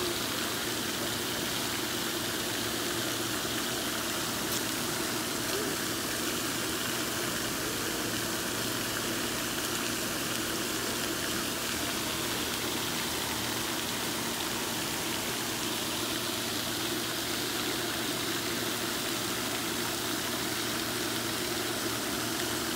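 Steady rushing, water-like background noise with a low hum underneath, unbroken and even, with no distinct splashes or knocks.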